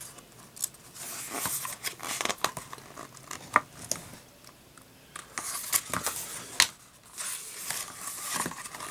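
Glossy pages of a hardcover Blu-ray Digibook being turned and handled: rustling, sliding paper in several bursts, with a few sharp taps and clicks between them.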